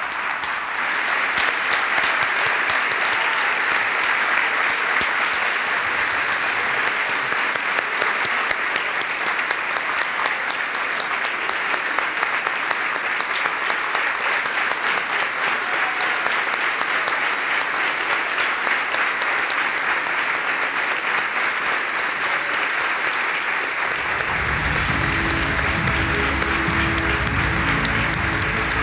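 Audience applauding steadily: dense, sustained clapping from a large crowd. About 24 seconds in, music with a low bass line comes in under the applause.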